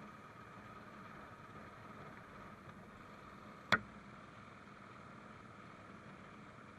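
Single-cylinder Royal Enfield motorcycle running steadily at cruising speed, heard faintly, with one sharp click a little past halfway.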